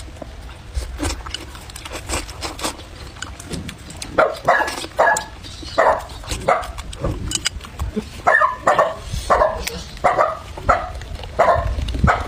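A dog barking repeatedly, about two short barks a second, starting about four seconds in. Before the barking, close eating sounds: chewing and chopstick clicks.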